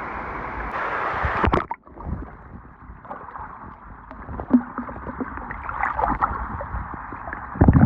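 Steady rush of flowing water at a waterfall. It cuts off abruptly about two seconds in, then gives way to quieter, uneven water noise with a few small knocks.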